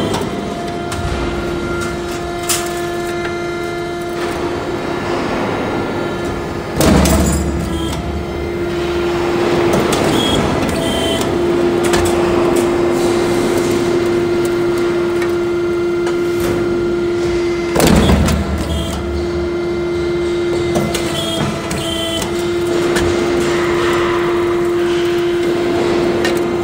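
C-channel roll forming machine running with its hydraulic punching unit: a steady motor hum under mechanical clatter, broken by two heavy thumps of the hydraulic die stroke, one about a quarter of the way in and one about two-thirds in.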